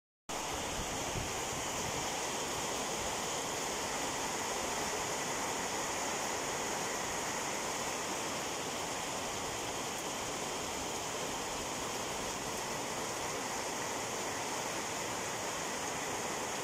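Rain falling steadily, an even hiss that starts a moment in and holds without change.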